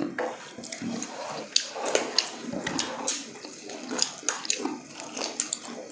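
Close-miked eating sounds: wet chewing, lip smacks and finger-licking over fried chicken, heard as many short, irregular smacks and crackles.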